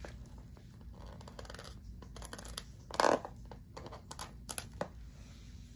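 Plastic packaging being worked open by hand, crinkling and scratching, with one louder burst about three seconds in and a few sharp clicks near the end.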